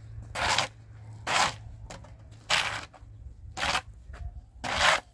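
A small hand shovel scraping across gritty, damp earth in five short strokes, about one a second.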